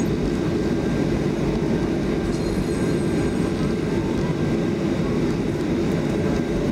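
Cabin noise of a Boeing 737-500 rolling along the runway after landing: a steady rumble of the landing gear on the pavement together with the CFM56 engines.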